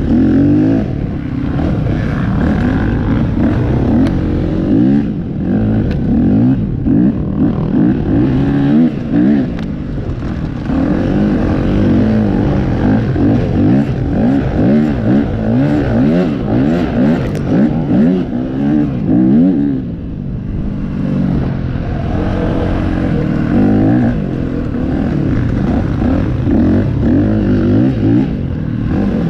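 Dirt bike engine revving up and down again and again, its pitch climbing and dropping every second or two as the rider works the throttle through an off-road hare scramble course.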